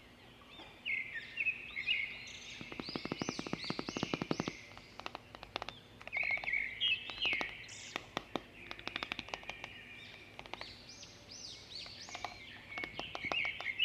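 Birds chirping over and over in short, quick notes, with runs of rapid sharp clicks, the densest about three to four seconds in.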